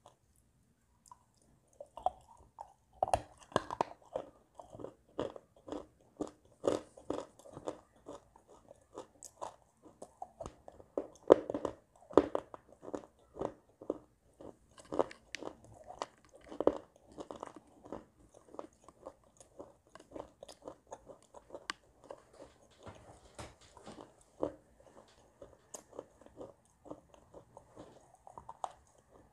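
Crunching and chewing of dry, crumbly edible clay chunks bitten off by mouth: many irregular crisp crunches, several a second, starting about a second in.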